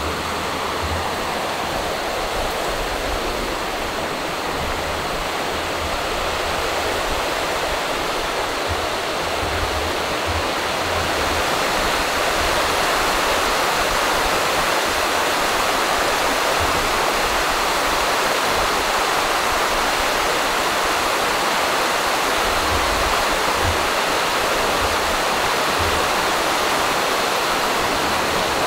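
A small stream rushing and splashing over stone slabs where it runs into the lake. It is a steady rush of water that grows louder about a third of the way in.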